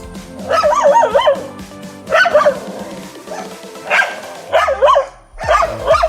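A dog giving about five short, wavering whines and yips that bend up and down in pitch, over background music.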